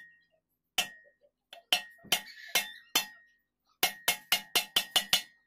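Hammer striking a steel pivot sleeve set in a Honda XR200 motorcycle swing arm. The blows are sharp metallic clanks, each with a short ring. A few spaced blows are followed by a quick run of about eight blows from about four seconds in.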